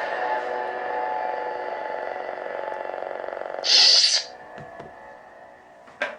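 Proffieboard lightsaber sound font playing through the saber's small speaker: a steady, many-toned hum that slowly fades, then a short loud hiss about three and a half seconds in as it trails off, and a brief click near the end.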